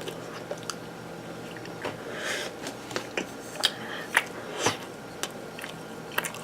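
Scattered small mouth clicks and breathing from a person recovering from very spicy food, with a breathy sniff about two seconds in, over a faint steady hum.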